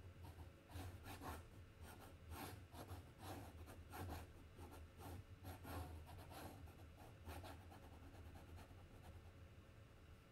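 Faint scratching of a glass dip pen on paper, many short quick strokes in an uneven rhythm, thinning out after about seven seconds.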